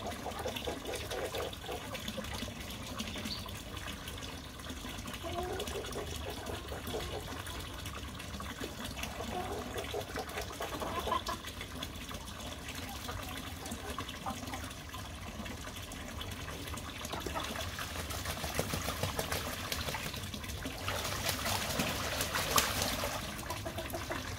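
Water trickling steadily from a pipe into a shallow cement tank where geese are bathing. The geese splash more loudly for a couple of seconds near the end.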